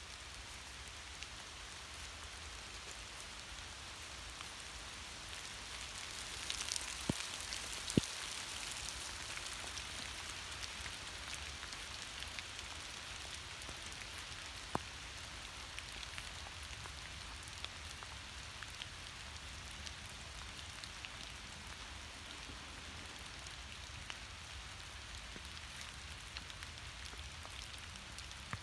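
Light rain falling on leaves and wet ground: a soft, steady hiss full of small drip ticks, swelling a little several seconds in, with a few sharper single drops.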